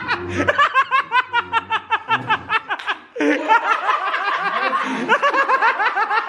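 A man laughing hard, a long run of quick ha-ha's, breaking off briefly about three seconds in and then going on.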